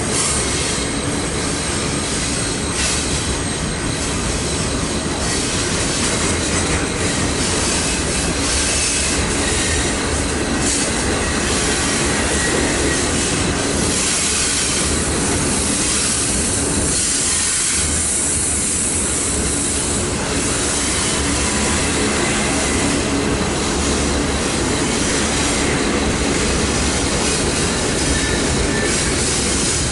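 Cars of a Union Pacific intermodal freight train rolling past: a steady, loud rumble of wheels on rail that stays at one level throughout, with a thin high tone over the top.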